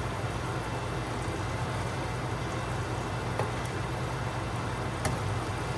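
A steady low mechanical hum, with two light clicks partway through.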